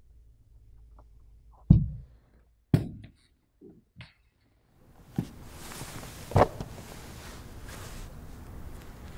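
Footsteps in a church: two heavy thudding steps about a second apart, then a couple of softer ones. Near the halfway point a steady hiss comes up, with a sharp tap in it.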